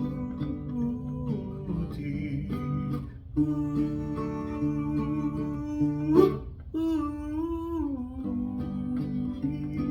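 Acoustic guitar strumming a slow country intro, with a wordless vocal line held and bent over it: a sharp upward swoop about six seconds in, then a falling glide.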